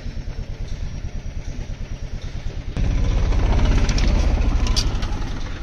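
Mahindra Jeeto mini-truck's engine, loaded with about 850 kg of wood, running at low revs with an even pulse, then revving hard about three seconds in as it pulls over the rough dirt track, easing off near the end.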